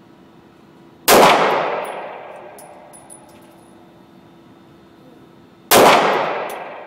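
Two 9mm semi-automatic pistol shots about four and a half seconds apart, each a sharp crack that echoes away over about a second. A few light high tinks follow the first shot.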